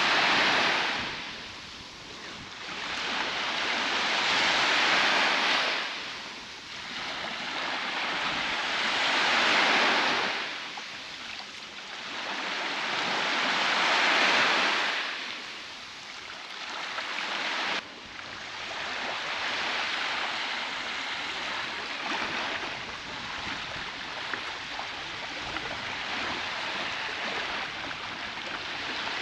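Baltic Sea waves washing onto a beach, swelling and fading about every five seconds. Near the middle the sound cuts off abruptly and gives way to a steadier, more even wash of surf.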